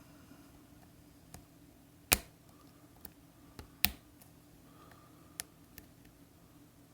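A lock pick working the wafers of an Illinois DUO triple-bitted wafer padlock, searching for the last unset wafer: scattered light clicks, two sharper ones about two and four seconds in, with a faint scrape of the pick between.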